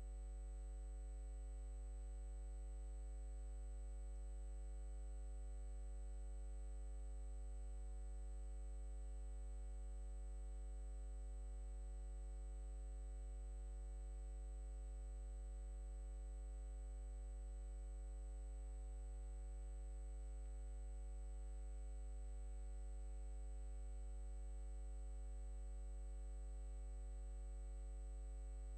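Steady low electrical mains hum with a thin high whine above it, unchanging throughout, with no other sound.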